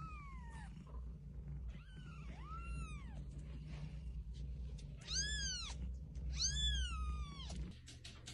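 Newborn kitten mewing: about five high, thin mews that rise and fall in pitch. The last two are the loudest, and the final one is the longest.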